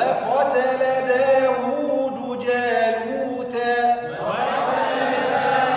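A man's voice reciting the Quran in tajweed style, holding long drawn-out vowels; a brief break about four seconds in, then the next phrase begins.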